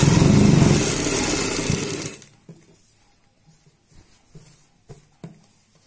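Domestic sewing machine stitching a seam at speed for about two seconds, then stopping, followed by a few faint clicks.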